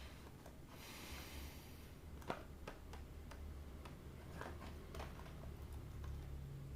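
Hands handling toy packaging: a brief soft rustle, then scattered light clicks and taps. The sharpest click comes a little over two seconds in.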